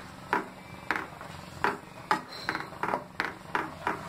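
Wooden spatula stirring thick milk kheer in a metal pan, knocking and scraping against the pan in short irregular clicks about two or three times a second.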